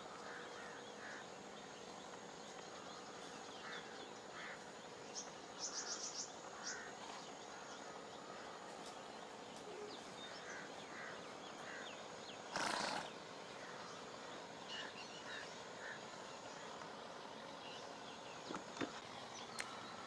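Bird chirps and calls scattered over a steady outdoor background, with a quick high trill about six seconds in. About halfway through there is one short, loud burst of rushing noise.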